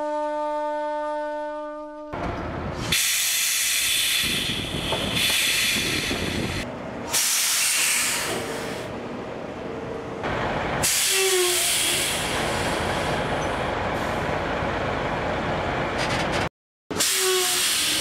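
Semi-trailer air brakes hissing as the parking brake is released: loud bursts of escaping compressed air begin about 3, 7 and 11 seconds in, with a few short squeaky tones near 11 seconds and again near the end. The first two seconds hold the tail of a flute melody.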